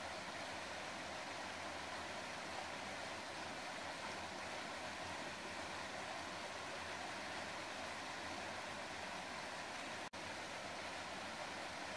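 Steady rushing of flowing water, an even hiss with no pitch, broken by a split-second gap near the end.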